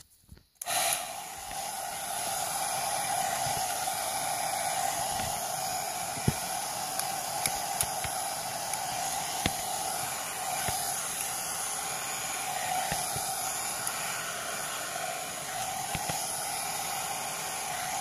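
3-in-1 hot air brush (hair dryer brush) starting abruptly about half a second in, then running steadily: a fan motor hum under a strong, even rush of air. A few sharp clicks about six to ten seconds in.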